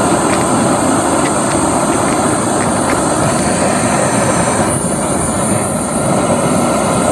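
BRS titanium canister stove burning under a lidded pot: a steady, loud gas-burner roar that eases a little about two-thirds of the way through.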